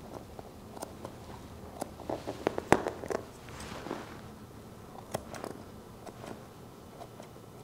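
Grooming shears snipping the fur on a puppy's foot: scattered short, sharp clicks, the loudest a little under three seconds in, with faint rustling of handling between them.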